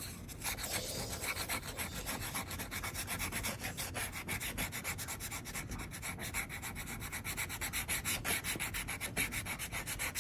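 Plastic card scraping rubbing-alcohol-softened tape glue residue off a furniture surface, in rapid repeated back-and-forth strokes.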